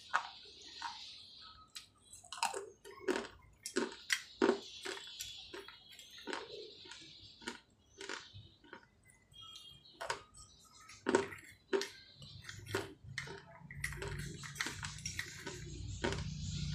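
Pieces of sun-dried clay pot being bitten and chewed: a string of sharp, irregular crunches close to the mouth. A low steady hum comes in near the end.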